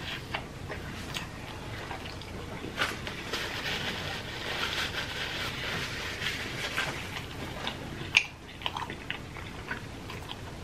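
Close-miked biting and chewing of a cheeseburger and other fast food: wet, sticky mouth sounds with many small clicks and smacks, busiest through the middle, and one sharper click about eight seconds in.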